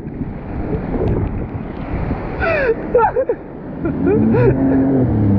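Wind on the microphone and water rushing under a jet ski riding through surf; about four seconds in, the jet ski's engine comes up to a steady, even pitch.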